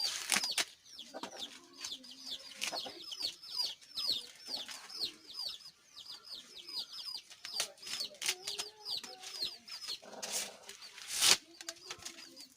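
Chickens clucking, with a steady stream of high, quick peeps repeating several times a second. Dry maize husks rustle and tear as they are stripped from the cobs, loudest about ten to eleven seconds in.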